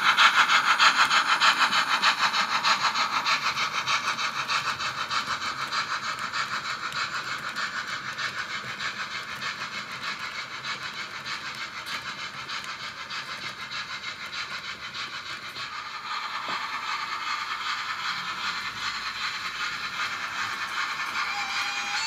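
Märklin model freight train rolling past on metal track, its wagons making a fast, even clatter. Loudest at first and fading as the train moves away.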